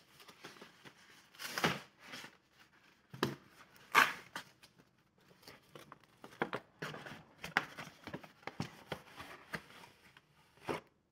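Cardboard shipping box being opened and rummaged through by hand: flaps pulled back and cardboard scraping and rustling in irregular bursts, with a few sharper knocks, the loudest about four seconds in.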